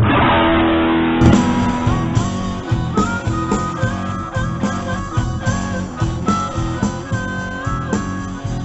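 Blues band playing live, a guitar carrying a melodic line over a steady beat.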